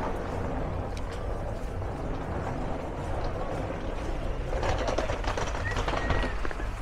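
Steady street noise: a low, even rumble like passing traffic, with faint chatter from passers-by about two-thirds of the way through and a couple of short high chirps near the end.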